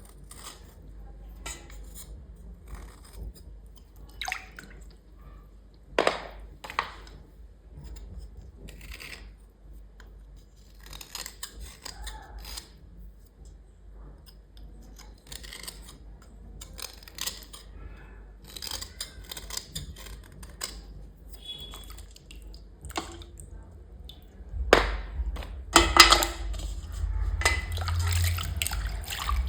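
Small dishes and utensils clinking, tapping and scraping as they are washed, with a couple of sharper knocks. Near the end water splashes and runs, louder than the rest.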